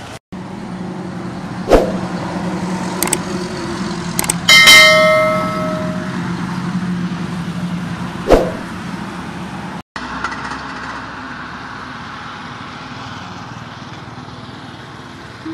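A bright bell-like ding, the loudest sound, that rings out for about a second and a half, from a subscribe-button notification-bell sound effect. Sharp knocks and clicks come before and after it, over a steady low hum.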